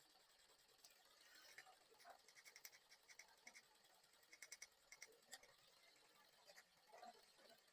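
Near silence, with faint irregular clicks and ticks, some in short quick runs.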